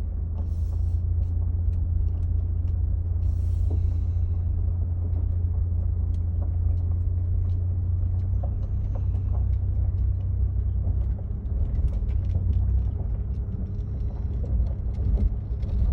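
Vehicle's engine and tyre rumble heard from inside the cabin while driving slowly, a steady low drone with scattered light clicks and ticks.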